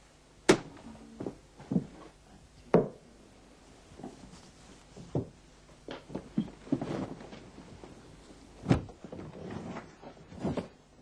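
Household objects being handled and moved about: a series of sharp knocks and thuds, the loudest about half a second in, near three seconds and near nine seconds, with softer shuffling and handling sounds between them.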